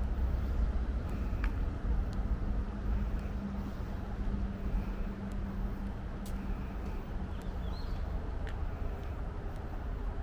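Steady low rumble of road traffic, with a humming tone that fades out about eight seconds in.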